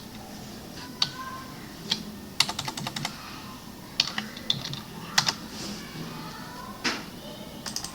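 Computer keyboard being typed on in short, irregular bursts of key clicks, with a quick run of keystrokes a couple of seconds in.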